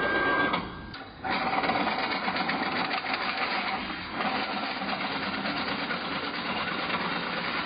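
BWZ-A automatic flat-strip coil bender running its feed, slotting and bending cycle on metal strip: a fast, even mechanical chatter. A short steady whine sounds at the start, and the sound dips briefly about a second in.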